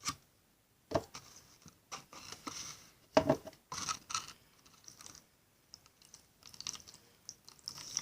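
Pencil stirring salt into hot water in a plastic container, scraping and tapping irregularly against the sides and bottom while the salt dissolves.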